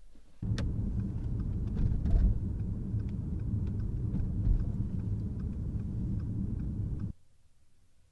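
Low, steady rumble of a car's engine and road noise heard from inside the cabin while driving. It starts abruptly and cuts off suddenly about seven seconds in.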